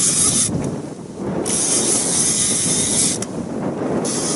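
Wind rushing over the microphone: a steady noise with a high hiss that drops out briefly twice.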